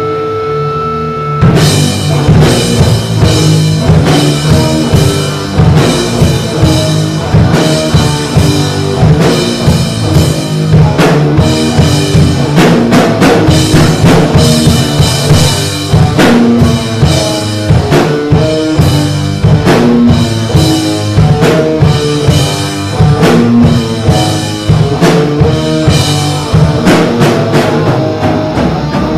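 Live punk rock band playing: electric guitars and bass over a drum kit. A single held guitar chord rings for the first second and a half, then the drums and full band come in hard and keep a fast, steady beat.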